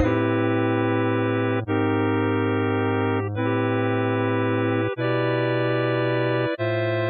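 Music: slow held chords with no drums, moving to a new chord about every one and a half seconds, with a brief dip in level at each change.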